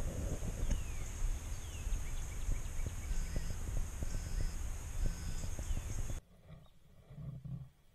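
Songbirds giving short chirps and whistles over a steady low rumble on a body-worn camera's microphone, with small knocks of handling. About six seconds in the rumble drops away abruptly, leaving a much quieter background.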